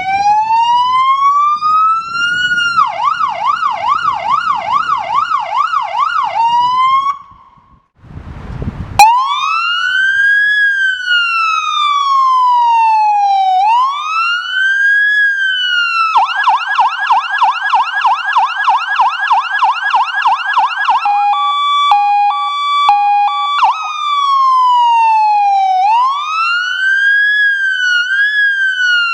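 Fire-service vehicle's electronic siren cycling through its tones: a slow rising and falling wail, a fast warbling yelp, then a quick two-tone hi-lo, then back to the wail. There is a brief break with a sharp knock about eight seconds in, between modes.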